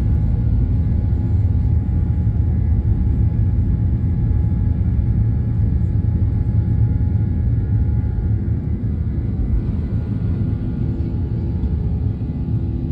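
Boeing 737-800's CFM56 engines at takeoff power and its wheels on the runway during the takeoff roll, heard from inside the cabin as a loud, steady low rumble that eases a little in the last few seconds.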